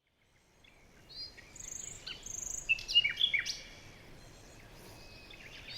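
Songbirds chirping and calling in short high notes and quick down-slurred whistles, fading in over the first second and busiest in the middle, then quieter.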